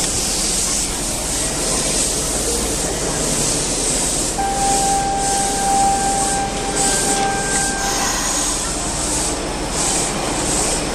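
Subway train running: a steady rumble and hiss, with a steady whine from about four to eight seconds in.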